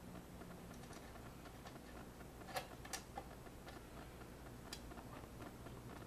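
Light clicks and taps of fingers handling a MacBook Pro's aluminium bottom case, with two sharper clicks about a third of a second apart midway, over a faint low hum.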